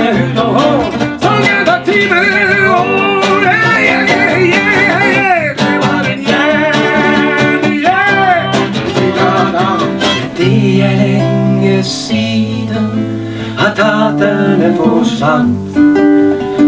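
A man and a woman singing a Norwegian traveller song together over a strummed acoustic guitar. About ten seconds in the voices drop back and the guitar chords carry on.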